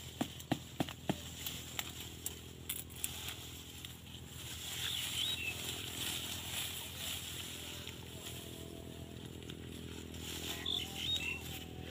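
Knife blade striking into the ground and sticks, a few quick sharp knocks about three a second, stopping a little over a second in. Softer rustling of dry grass and branches follows.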